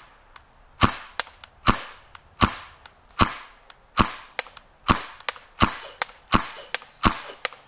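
Gas blowback airsoft TEC-9 pistol firing single shots at a steady pace, about one every 0.8 seconds, nine in all. Each shot is a sharp pop with the snap of the blowback slide, and fainter clicks fall between the shots.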